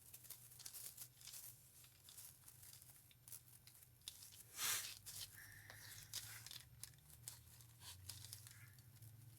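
Faint handling sounds of craft work: scattered small clicks and rustles, with one louder tearing rustle about five seconds in, over a steady low hum.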